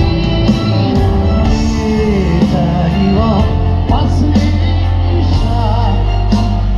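Live pop-rock band music, loud and steady, with a man singing over a heavy bass and drums. It comes through an outdoor stage PA and is heard from within the crowd.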